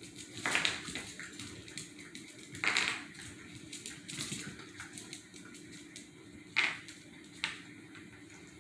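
A disposable puppy training pad crinkling and rustling in a few short bursts as a small puppy paws and mouths at it. Light clicks of claws on a tile floor come in between.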